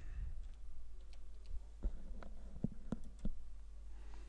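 Computer keyboard and mouse clicking: a handful of separate sharp key and button clicks spread over a few seconds, as a short code is typed and a button pressed, over a faint low steady hum.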